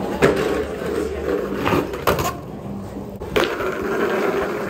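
Skateboard rolling with a steady wheel rumble, broken by three sharp clacks of the board striking, about a second in between each.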